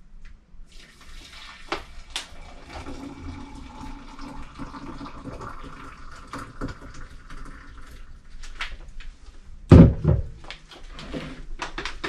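Hot water poured from a stainless steel electric kettle into a ceramic mug: a steady splashing stream lasting several seconds. Near the end comes a single loud thump, the kettle being set back down on the counter, then a few light clicks.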